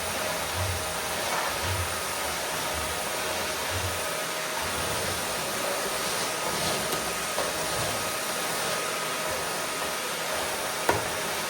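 Vacuum cleaner motor running steadily with a constant whooshing hum and a faint steady whine. A soft low pulse comes about once a second for the first few seconds, and there is one sharp click near the end.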